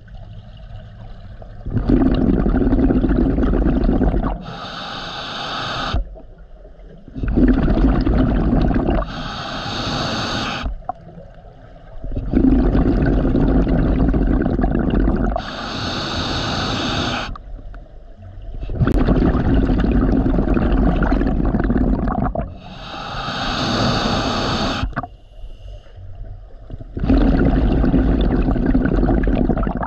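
Underwater, a scuba diver breathing through a regulator: a long bubbling rush of exhaled air alternates with a shorter hiss of inhalation, in a regular cycle about every five seconds, six breaths in all.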